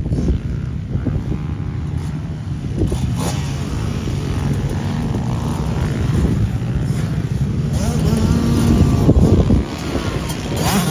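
Pit bike and dirt bike engines revving up and down, several bikes running at once.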